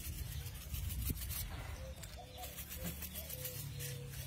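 Pepper being shaken from a spice shaker: a soft, rapid pattering of fine ticks, densest in the first two seconds and thinning after.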